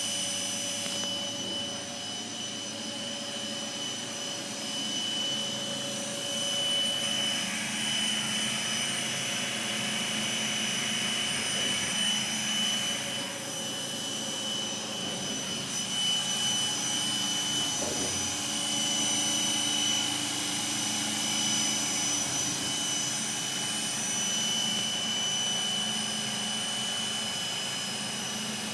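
Haas GR-510 gantry router engraving, its spindle running with a steady high whine over a constant rushing noise, swelling slightly at times as the cut goes on.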